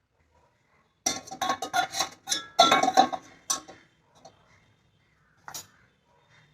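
Kitchen vessels clattering and clinking against each other and the dishwasher rack as a milk vessel is set in place: a rapid run of knocks for nearly three seconds, then one more knock about five and a half seconds in.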